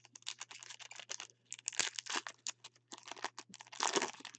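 Foil wrapper of a trading-card pack being torn open and pulled apart by gloved hands: a dense run of crinkling and crackling, loudest about two seconds in and again near the end.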